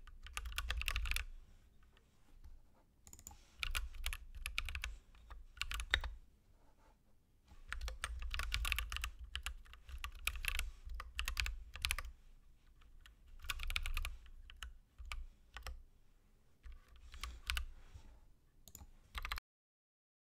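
Typing on a computer keyboard: rapid key clicks in bursts separated by short pauses, cutting off suddenly near the end.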